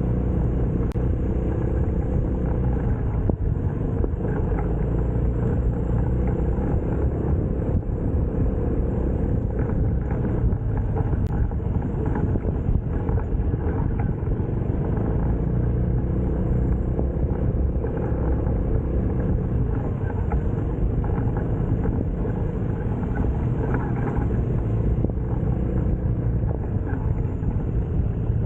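Aveta Vanguard 250 motorcycle engine running steadily while riding, a constant low rumble with no big changes in speed.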